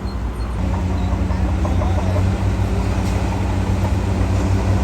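Heavy diesel engine of a construction machine (a bulldozer or dump truck) running steadily under load, a low drone that grows louder about half a second in.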